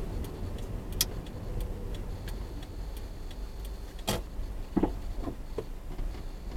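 Regular ticking, about three ticks a second, over a low steady hum. A sharper click comes about a second in, and a short noisy burst just after four seconds, followed by a few brief chirps.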